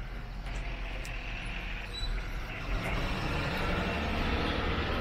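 Road traffic noise, a steady rumble and hiss that grows louder about two seconds in.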